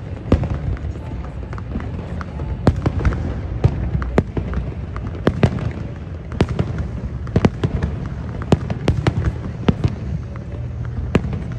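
Aerial firework shells bursting in quick succession: irregular sharp bangs and cracks, several a second, over a constant low rumble.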